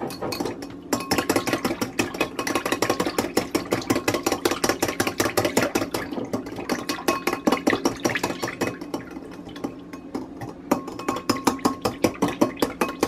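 Wire whisk beating oil in a glass bowl, the metal wires clicking rapidly against the glass. The beating eases off briefly about three-quarters of the way through, then picks up again.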